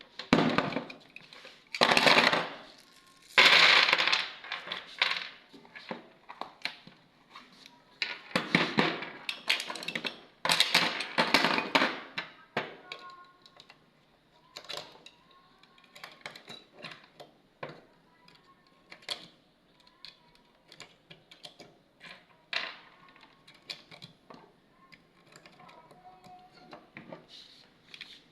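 Irregular metallic clicks and clinks of 9mm cartridges being pushed out of and loaded into a Beretta 92FS pistol magazine, with handling and scraping noise. The handling is louder and busier in the first half, then settles into sparser single clicks.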